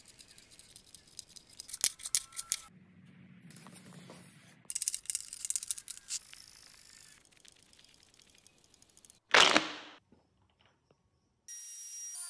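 Small end-grain oak blocks clicking and knocking together as they are pushed into a brick pattern on a bench, in two bursts of rapid clicks. A single loud swish comes about three quarters of the way through, and a steady mechanical noise starts near the end.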